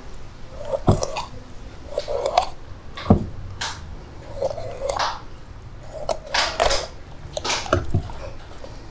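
Knife scoring a cleaned traíra crosswise for frying: about ten short crunching cuts through the flesh and its small bones, several ending in a low knock.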